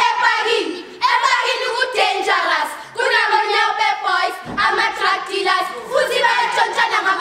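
A group of girls singing together in short phrases, a children's playground game song, with one short thump about halfway through.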